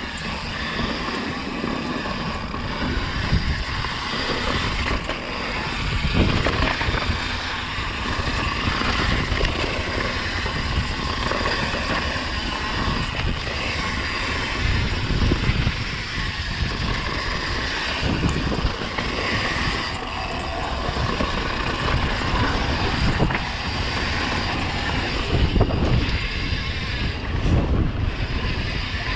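Wind buffeting the microphone of a camera carried on a mountain bike riding down a dirt trail, mixed with tyre and bike rumble that swells and eases with the terrain.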